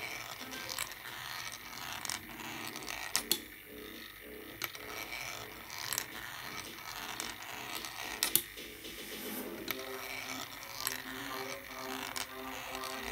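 Small 3D-printed marble machine running: small metal balls roll and rattle along its plastic zigzag tracks, with sharp clicks every second or two as they drop and knock.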